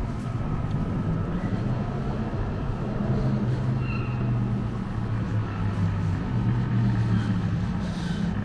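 City street traffic, with a nearby vehicle engine running steadily as a low hum. A few brief faint high chirps are heard.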